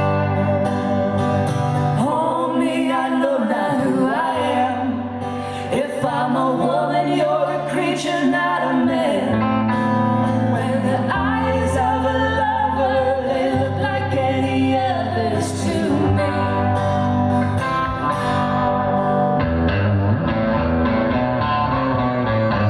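Live band music: guitars and bass under a wavering, bending lead melody line.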